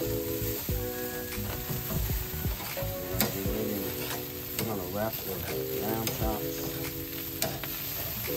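Burger patties and meat sizzling on a charcoal grill grate, with a few sharp clicks of metal tongs on the grate, the loudest about three seconds in. Music with sustained notes plays underneath.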